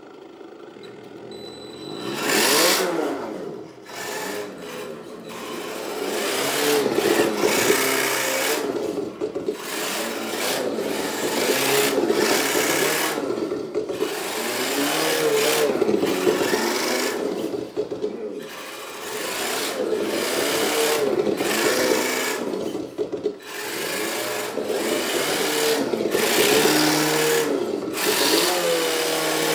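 Radio-controlled drift car running and sliding on a hard floor: its motor and drivetrain note rises and falls in pitch with the throttle, with rasping bursts of noise as the tyres scrub.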